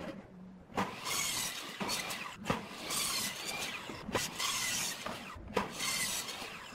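Electric miter saw cutting through a pine board several times in a row, each cut a burst of high blade noise with short pauses between them.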